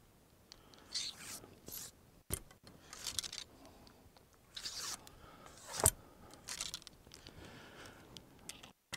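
Wooden ramrod sliding and scraping in the bore of a muzzleloading double-barrel shotgun as a cork wad is pushed down onto the load: several short scraping strokes, with a sharp knock about two seconds in and a louder one a little before six seconds as the rod seats the wad.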